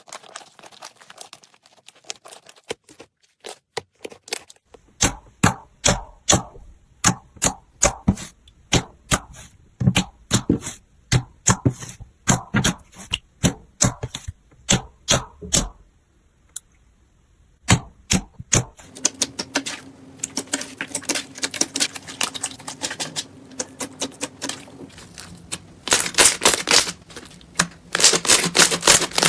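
Slime being pressed and squished by hands close to the microphone, giving a run of sharp clicking pops at about two or three a second. After a short pause it turns into denser, faster crackling that grows loud near the end.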